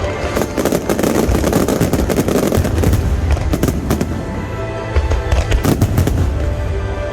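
Finale of an aerial fireworks display: a dense, continuous run of crackling bursts and low booms overlapping one another, with no break.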